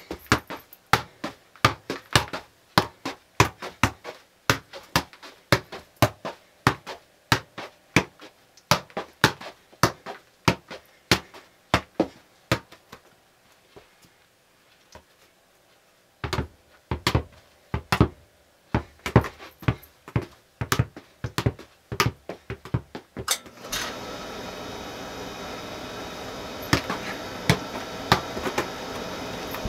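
A soccer ball being juggled, kicked repeatedly off the foot in a steady run of sharp taps about two to three a second. The taps stop for a few seconds around the middle, then resume. Near the end a steady machine hum starts up under the last kicks.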